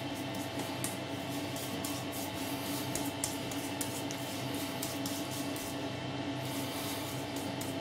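Fingertips rubbing soft shaving cream into three-day stubble: a scratchy rustle made of many short, irregular crackles, over a steady background hum.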